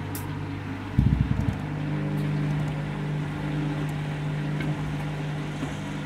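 Washing machine spinning with a load that may be out of balance: a quick run of low knocks about a second in, then the drum and motor turning with a steady low hum.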